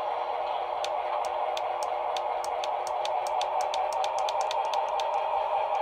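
Broadway Limited HO scale EMD E9 model's DCC sound decoder playing its diesel engine revved up, through the model's small onboard speaker: a steady, tinny drone with sharp clicks that come faster as it goes.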